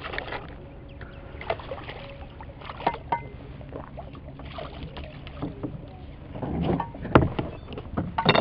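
Irregular splashes at the surface from a hooked redfish being played beside a small boat. Scattered sharp knocks and clicks run through it, with a longer splashing swell shortly before a loud knock near the end.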